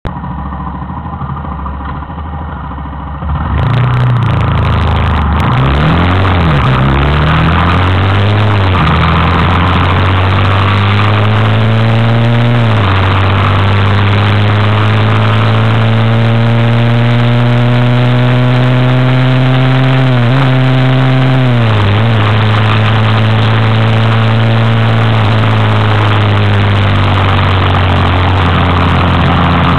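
Daelim Roadwin 125 cc motorcycle engine heard from an onboard camera while riding. The engine pulls away about three seconds in and climbs in pitch, dropping back at each of several gear changes. It then runs at a steady cruise under heavy wind noise, easing off and dropping in pitch twice about two-thirds through.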